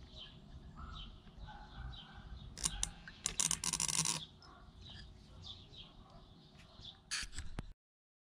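A small bird chirps over and over in the background. A few sharp clicks come about two and a half seconds in, then a loud rush of noise lasting about a second, and another short loud burst near the end before the sound cuts off.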